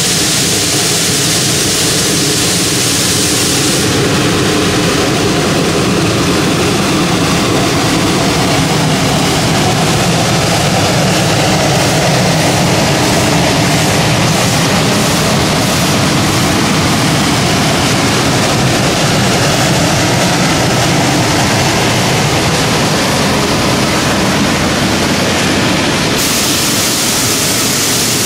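Shay geared steam locomotive No. 5 working past at close range: a steady, loud rush of exhaust and running gear, followed by its cars rolling by on the rails.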